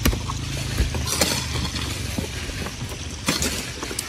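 A few scattered knocks and scrapes of an iron crowbar and stones against a large boulder as it is pried loose from the dirt, over a low steady rumble that fades after about two seconds.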